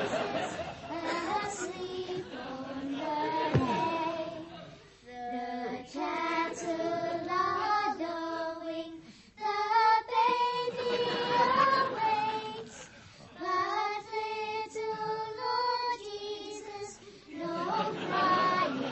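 A group of voices singing a Christmas carol as a choir, in phrases of held notes with short breaks between them.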